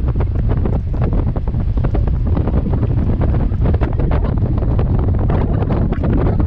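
Wind buffeting the microphone of a camera on a moving motorbike: a loud, steady low rumble with constant rapid crackling flutter.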